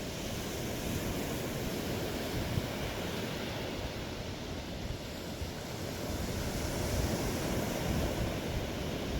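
Surf washing onto the beach, with wind rumbling on the microphone.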